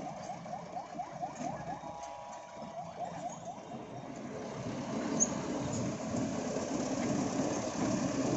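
Engine and road noise of a heavy vehicle, growing louder over the second half. Through the first few seconds a run of short rising squeaks repeats about five times a second.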